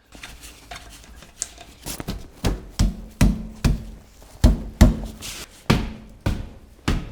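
A series of heavy knocks, sparse at first and then about two to three a second from about two seconds in, each with a short ring.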